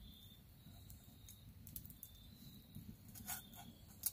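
Quiet background with a few faint clicks and taps, clustered about three seconds in and again near the end.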